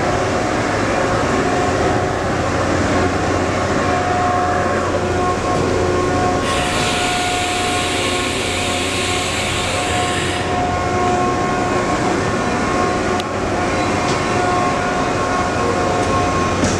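Steady machine-shop machinery noise: a continuous mechanical drone with a low hum and steady whining tones. A loud hiss comes in for about four seconds in the middle, and there is a single click near the end.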